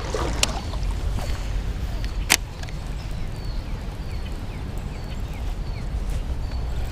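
Outdoor creek ambience: a steady low rumble of wind and moving water, with a single sharp click a little past two seconds in and faint, short, high chirps repeating through the later part.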